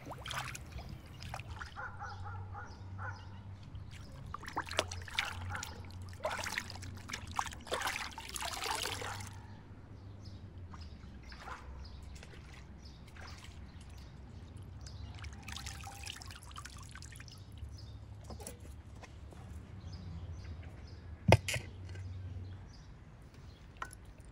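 Water sloshing, splashing and trickling as raw beef hearts are washed by hand in a basin of water, busiest for the first nine seconds and then quieter. A single sharp knock near the end.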